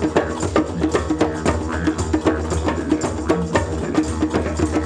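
Live hand-drum ensemble of djembes playing a fast, steady rhythm of many strikes a second, over a low steady drone.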